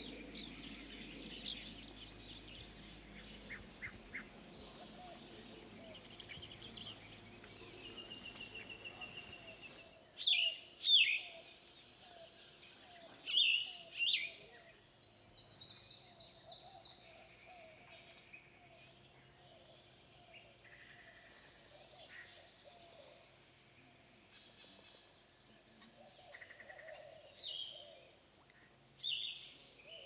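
Outdoor nature ambience with birds calling: loud, short falling calls, mostly in pairs, about ten seconds in, around fourteen seconds and again near the end, with softer chirps and a longer high call in between.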